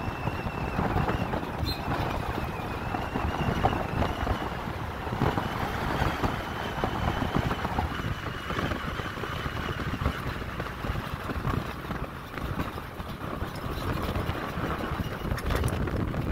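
Wind rumbling on the microphone over a Toyota Tacoma pickup driving on dirt, the truck coming closer near the end.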